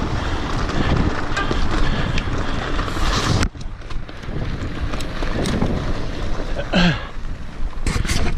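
Wind buffeting the camera microphone over the rumble and rattle of a mountain bike riding fast down a dirt trail, with sharp knocks as it goes over bumps. The level dips briefly about halfway through.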